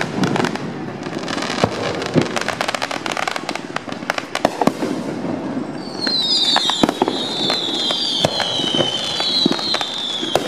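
Aerial fireworks going off, with many sharp bangs and crackles in quick succession. From about halfway, several overlapping high whistles glide slowly down in pitch over the bangs.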